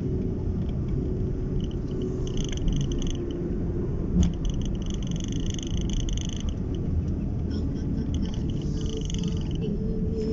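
Steady low road and engine rumble inside a small hatchback, a Honda Brio, driving down a mountain road, with a high pulsed buzzing that comes and goes over it and a single knock about four seconds in.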